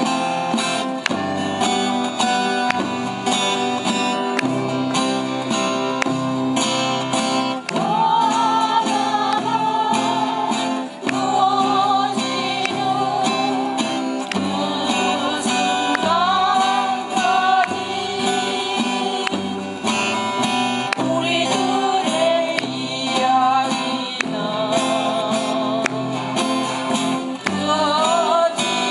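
Music: a strummed acoustic guitar, joined about eight seconds in by a singing voice in phrases with vibrato.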